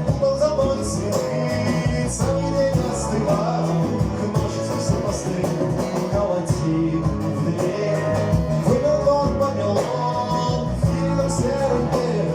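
Live band music: an instrumental passage on guitar with drums, a cymbal keeping a steady beat about twice a second.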